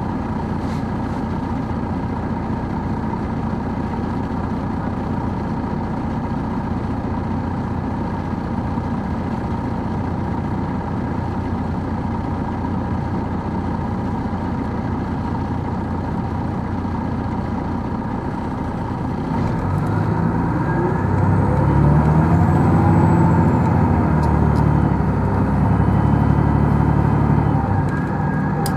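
Detroit Diesel Series 60 engine of a 2002 MCI D4000 coach, heard on board, running steadily. About two-thirds of the way in it gets louder as the bus accelerates, with a rising whine, and eases back just before the end.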